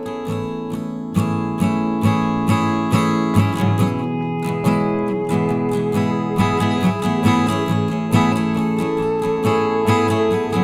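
Background music: strummed acoustic guitar chords, about two strums a second, with no singing.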